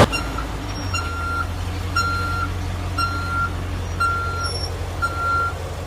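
A vehicle's reversing alarm beeping about once a second, six beeps in a row, over the steady low hum of its running engine.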